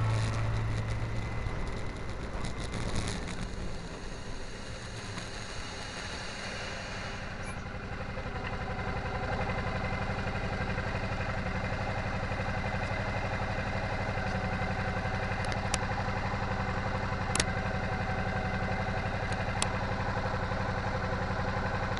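Motorcycle engine running at a steady cruise on a winding road, with rushing road and wind noise. The sound eases for a few seconds early, then holds even, with a few light clicks in the second half.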